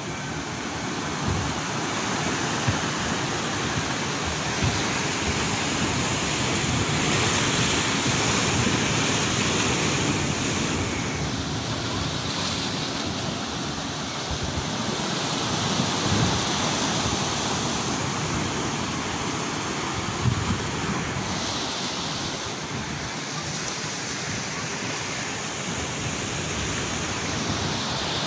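Sea waves washing, with wind buffeting the microphone. The noise swells and eases slowly over several seconds.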